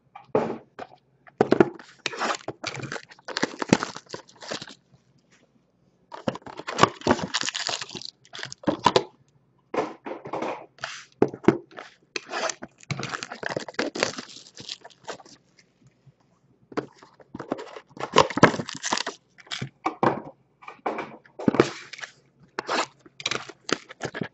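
Trading-card hobby boxes being torn open by hand: plastic shrink wrap crinkling, cardboard ripping and wrapped card packs being handled and set down on the table, in irregular crackly bursts with two short pauses.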